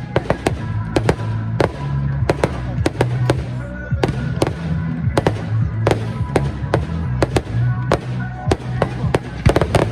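Fireworks display: a rapid, irregular string of sharp bangs and crackles from bursting shells, about two or three a second, over loud music with a steady bass.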